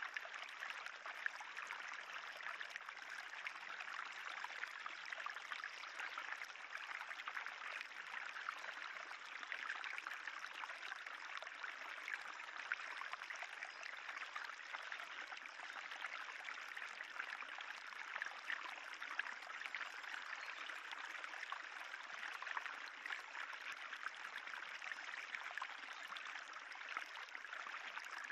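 Spring water running steadily along a narrow raised limestone-tufa (sinter) channel, a constant fine trickle.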